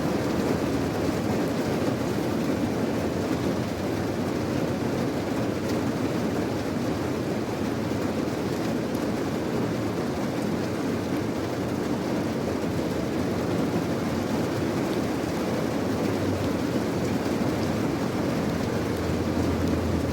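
Steady rain falling: an even, unbroken rushing noise, fullest in the low range.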